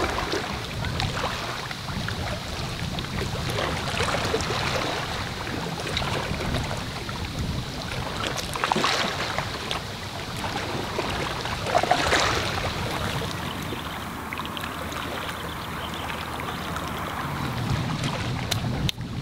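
Small lake waves lapping and splashing against shoreline rocks in a steady, uneven wash, with a slightly louder splash about twelve seconds in.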